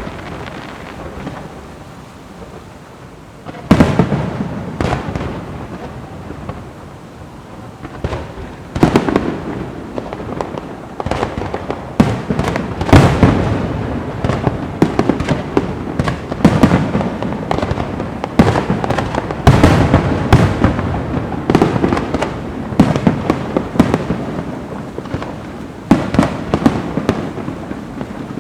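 Fireworks going off: irregular sharp bangs with crackling, beginning a few seconds in and coming thick and fast from about eight seconds onward.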